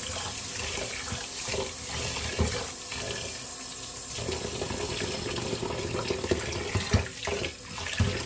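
Kitchen tap running into a pot of rice in a stainless steel sink while a hand swishes and rubs the rice in the water to wash it. A few louder sloshes come through the steady stream, near the middle and toward the end.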